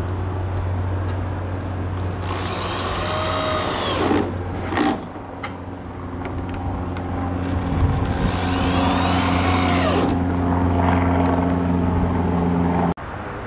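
Power drill running under load into pressure-treated lumber overhead, its tone changing about halfway through, with two louder, shriller stretches, then stopping suddenly near the end.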